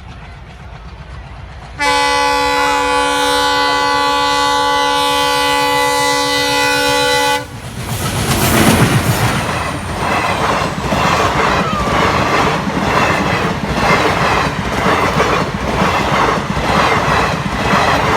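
Indian Railways diesel locomotive's horn sounding one long steady blast of about five seconds, starting about two seconds in, then the train passing close by with loud running noise and a steady clickety-clack of wheels over the rail joints.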